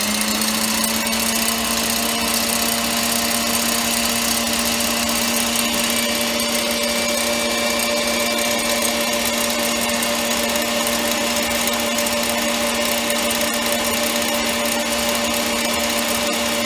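KitchenAid Heavy Duty stand mixer running steadily on high speed, its wire whisk beating egg whites into meringue. The motor gives a constant, even-pitched whine over a whirring hiss.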